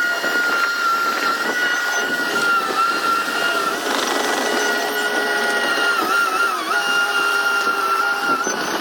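Bulldozer running with a steady high-pitched whine over the engine noise; the whine dips briefly in pitch about six and a half seconds in.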